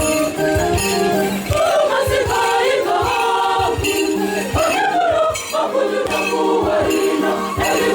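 Church choir singing together, backed by a steady low beat.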